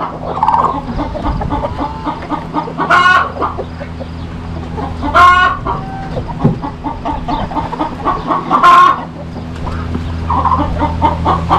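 Hens clucking, with three louder calls about 3, 5 and 9 seconds in.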